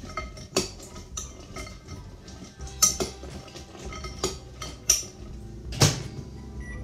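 A metal spoon stirring broken dark chocolate pieces in a glass bowl, with irregular clinks and scrapes against the glass. A louder knock comes near the end.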